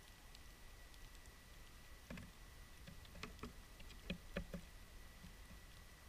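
Small sparrows pecking spilled seed off a wooden surface close to the microphone: a scatter of light clicks and taps between about two and five seconds in, over near silence.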